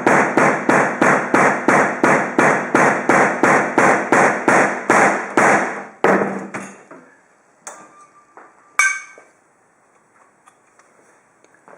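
Rapid, even blows, about four a second for some six seconds, repeatedly crushing an HDMI cable at the same spot; then a few scattered clicks and a single metallic clink that rings briefly.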